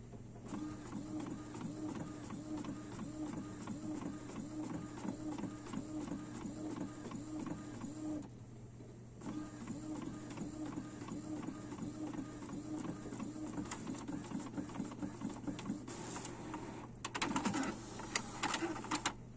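Epson inkjet all-in-one printer printing a page, its print head shuttling back and forth in a steady repeating whir. It pauses for about a second some eight seconds in, then carries on, with a louder burst of clicking and rattling near the end.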